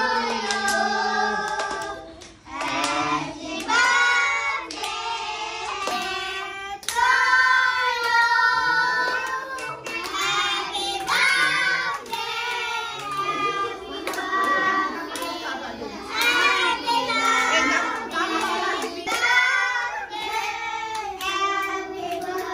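A group of young children singing together, with hands clapping along.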